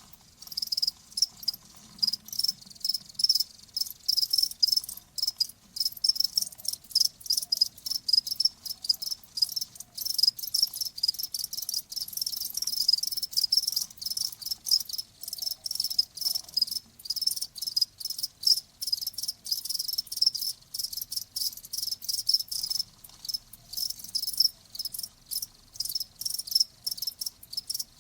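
Crickets chirping: short, high-pitched chirps repeating several times a second without a break.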